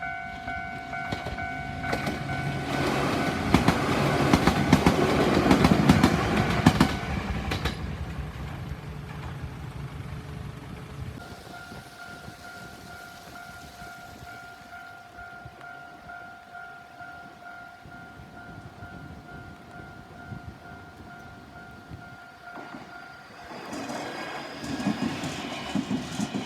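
Japanese railway level crossing's electronic warning bell ringing in a steady repeating pattern while a train passes, the train's rumble and wheel clatter loudest about three to seven seconds in. The bell then rings on alone, and near the end another burst of train noise begins.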